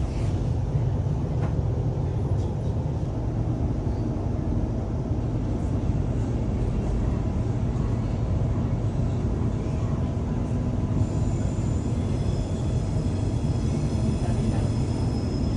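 Electric commuter train running, a steady low rumble. A faint high whine comes in about eleven seconds in.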